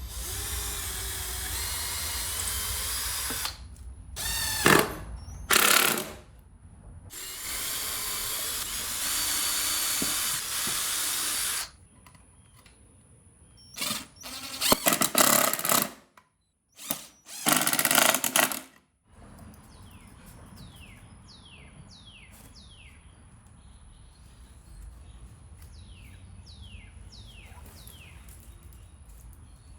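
A power tool working pallet wood. It runs in two longer spells of a few seconds and several short bursts, then stops. Over the last third, birds chirp in quick runs of short falling notes.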